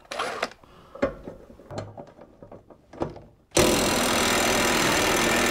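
A few light clicks and knocks as the socket is fitted, then about three and a half seconds in a cordless impact wrench starts hammering steadily, undoing the tight centre bolt of a lawn mower blade.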